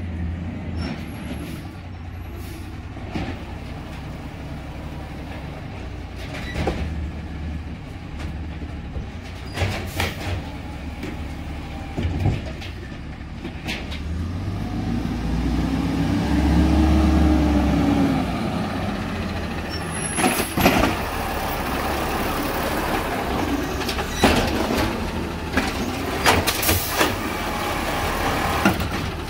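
LNG-fuelled Peterbilt 320 garbage truck running, with sharp knocks and clanks here and there. About halfway through, the engine gets louder and its pitch rises and falls back.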